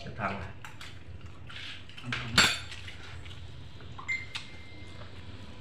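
Dishes being handled while eating: a few sharp clinks and knocks of plates or bowls, the loudest about halfway through, and one a little after four seconds that rings on briefly.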